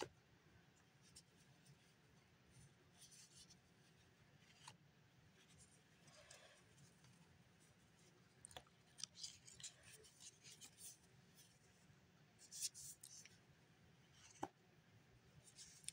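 Near silence with faint, scattered slides and flicks of trading cards being shuffled through by gloved hands, a little busier in the second half.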